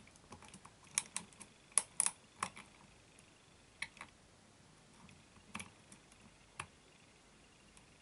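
Metal lock pick clicking against the pins of an ISEO euro cylinder lock under tension while it is being picked. A quick run of sharp clicks comes first, then a few single clicks spaced about a second apart that stop about two-thirds of the way through.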